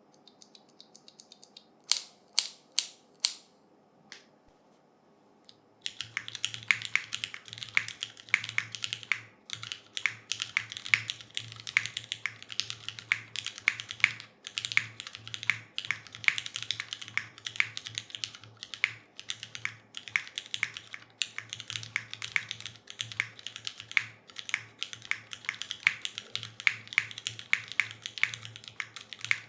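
Mechanical keyboard with Cherry MX2A Black linear switches being typed on. A few seconds in there are four separate keystrokes, and from about six seconds in it changes to fast, continuous typing.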